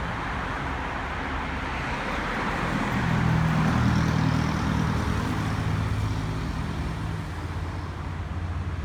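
Motor vehicle running on the road, with a steady road-noise hiss; the engine's low hum grows louder a few seconds in, then eases off.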